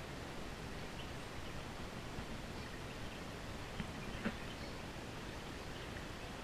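Steady outdoor background hiss, with two faint short clicks about four seconds in.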